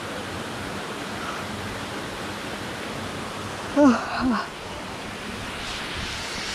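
Steady rushing background noise, with a man's short weary groan of two falling syllables about four seconds in.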